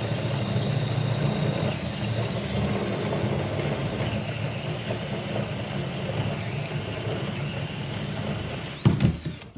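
24V DeWalt cordless drill running a Spyder carbide-tip hole saw under load, cutting steadily through 3/4-inch AdvanTech subfloor board. Near the end there is a sudden loud knock and the sound falls away as the saw breaks through and the drill stops.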